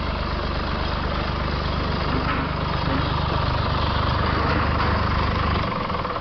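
Stump grinder engine running steadily with the hiss of the cutting wheel; its low drone stops near the end as the machine winds down.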